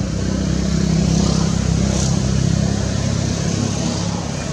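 A motor vehicle engine passing, its low, steady hum swelling about a second in and easing off near the end.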